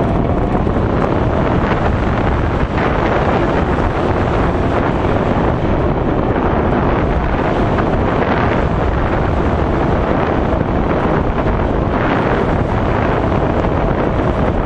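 Steady, loud wind rush buffeting the microphone.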